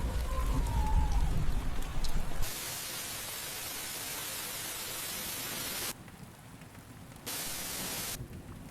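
Atmospheric sound design: a deep low rumble for the first two seconds or so, then an even, rain-like hiss that cuts off abruptly about six seconds in and returns briefly about a second later.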